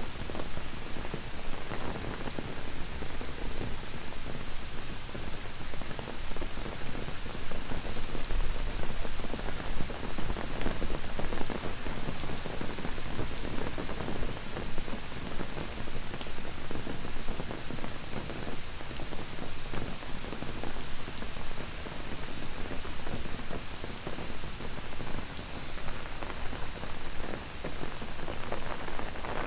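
Steady rain falling on an umbrella, with a constant high-pitched chorus of cicadas over it.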